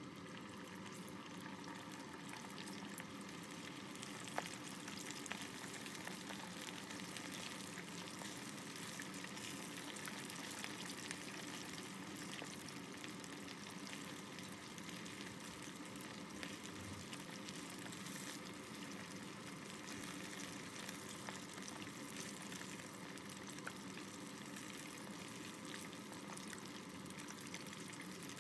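Chicken karaage pieces deep-frying in hot oil during their second fry: a steady sizzle with scattered small crackles and a few sharper clicks.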